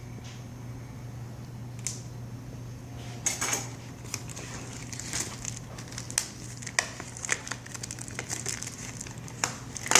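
A knife cutting open a cardboard box and the packaging being pulled apart: scattered crinkles, scrapes and clicks, busier from about three seconds in, over a steady low hum.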